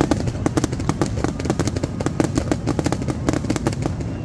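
Aerial fireworks finale: a dense, rapid string of sharp reports and crackles from bursting shells, several a second, with no break.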